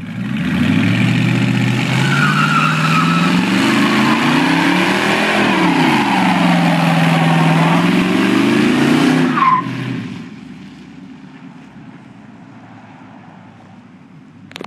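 Dodge Charger's engine revving hard through a burnout, the rear tyres spinning and squealing against the pavement, the revs rising, dipping and rising again. After about nine and a half seconds the revving stops suddenly, leaving a much quieter engine as the car drives off.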